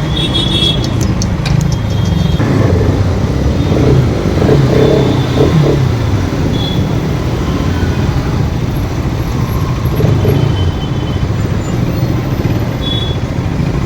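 Motorcycle riding through heavy traffic: the bike's engine runs under loud, steady wind noise on the microphone, with other traffic around.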